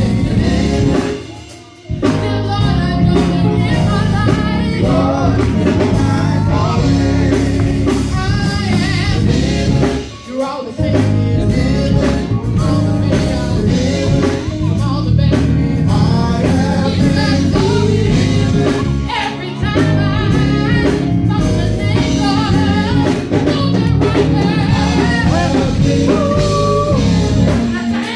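Live gospel band playing: a woman singing lead with backing vocalists over keyboard and drums. The music dips briefly about a second and a half in and again around ten seconds.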